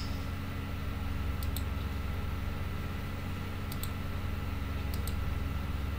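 Computer mouse button clicking: four short press-and-release click pairs, one every one to two seconds, over a steady low electrical hum.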